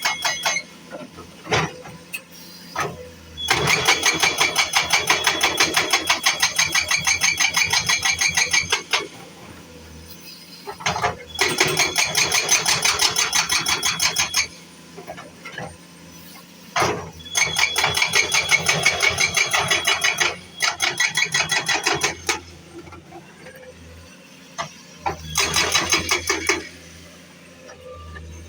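A powered road-repair machine hammering in rapid, evenly repeated strikes with a metallic ring. It runs in four bursts of a few seconds each, with short quieter pauses between them.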